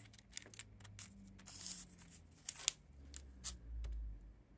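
Faint rustling and light ticks of a strip of tape being handled and laid across an insect's wing on a cork pinning board, with a dull low bump near the end.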